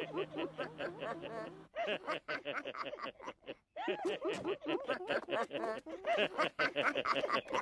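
Several cartoon voices laughing together in quick, repeated 'ha-ha' pulses, with a short break a little after three seconds. A low steady hum runs under the first couple of seconds.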